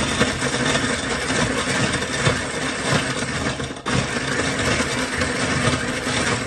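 Countertop blender with a glass jar crushing ice in water: a loud, continuous grinding rattle of ice against the blades and jar. It cuts out for an instant just before four seconds in, then runs on.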